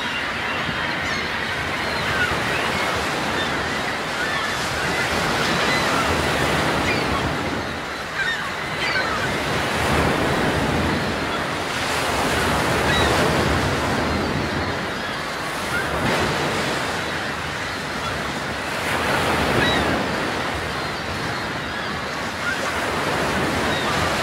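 Sea surf washing, swelling and easing every few seconds, with faint short cries of seabirds scattered through it.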